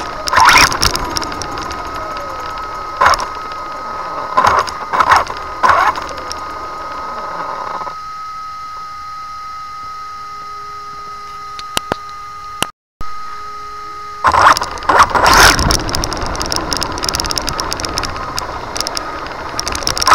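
RC car with a brushless electric motor driving on pavement: a whine that rises and falls with the throttle, tyre noise, and sharp clattering from bumps, with the rattle of the loose buttons on a camera clipped to its roof. About 8 s in it stops, leaving only a steady high electronic whine. About 14 s in it drives off again, loud and clattering.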